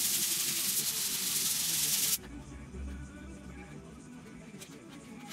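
Sandpaper rubbed by hand across a wooden board, a steady rasping hiss that stops abruptly about two seconds in.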